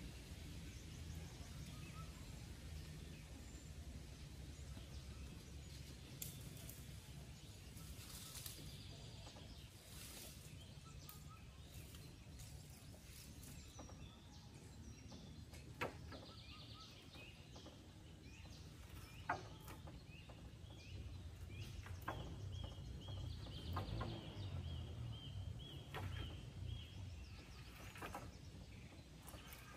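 Outdoor ambience: scattered bird chirps over a low steady rumble, with a thin high steady call held for several seconds in the second half. Two sharp clicks stand out, one about halfway through and another a few seconds later.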